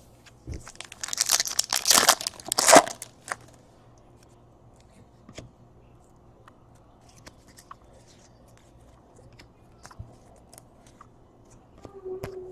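A trading-card pack's wrapper being torn open and crinkled for about three seconds. After that come faint, scattered clicks and rustles of cards being handled.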